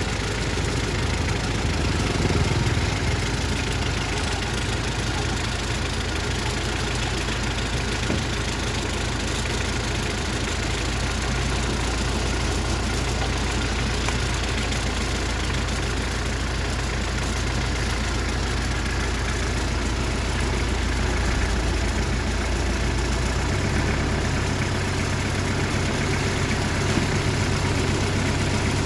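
Car engine idling steadily, heard from inside the car's cabin, with a low drone that shifts slightly in pitch about three-quarters of the way through.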